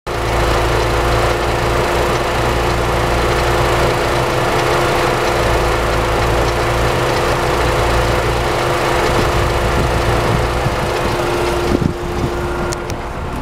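2006 Mini Cooper R52's 1.6-litre W10B16A four-cylinder petrol engine running steadily at idle, heard with the bonnet open. Near the end it gets a little quieter, with a few light clicks.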